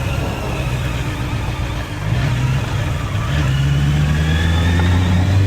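Honda CB650R's inline-four engine running under way, heard through an action camera's built-in microphone. It eases off briefly a little before two seconds in, then pulls again, its pitch stepping up around three to four seconds in.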